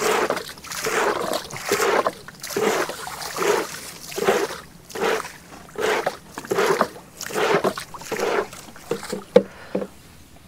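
Regular splashing strokes in the water at a canoe, about one every second.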